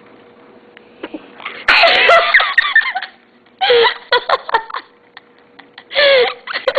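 A young girl's sneeze, sudden and loud, about a second and a half in, followed by bursts of laughter.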